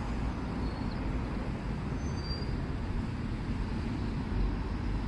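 Steady road traffic noise from passing cars, a low rumble under an even hiss, with a few faint short high tones.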